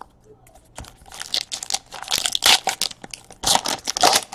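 A baseball card pack's foil wrapper being torn open and crinkled by hand, in two spells of sharp crackling.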